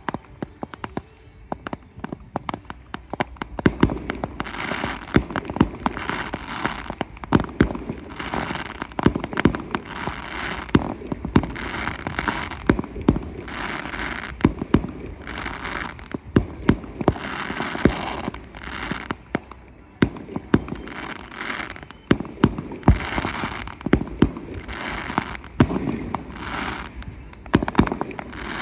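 Fireworks display: aerial shells bursting in a rapid, irregular series of sharp bangs, with hissing between them. The bangs are sparse for the first few seconds, then come thick and fast.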